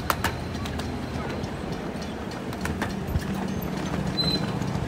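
Ride-on miniature railway train running along its track: wheels clicking over rail joints at irregular spacing over a steady low hum.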